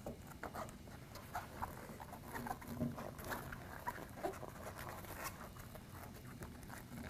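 Faint rustling and scattered soft taps of gloved fingers pressing and tucking a thick foam strip into the gap between window sashes.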